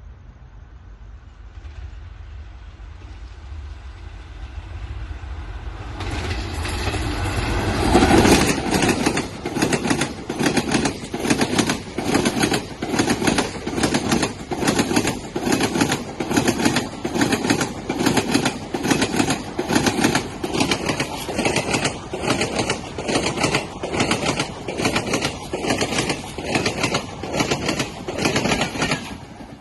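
An express train hauled by a WAP4 electric locomotive passes at high speed. A rumble builds as it approaches, and about eight seconds in the locomotive arrives with a loud burst. The coaches then keep up a loud, rapid, regular clatter of wheels over the rail joints, which stops abruptly near the end.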